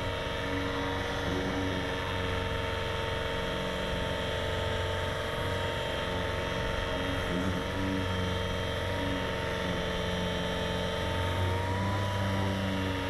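Power sander running steadily on automotive body panels, dry-sanding with 280–320 grit paper to scuff the paint before primer, a continuous motor whine with a low pulsing hum.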